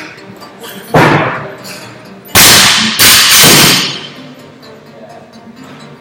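Loaded barbell with bumper plates dropped from overhead onto rubber gym flooring: a heavy thud about two and a half seconds in and a second one just after as it bounces, fading with echo. Another single thud sounds about a second in.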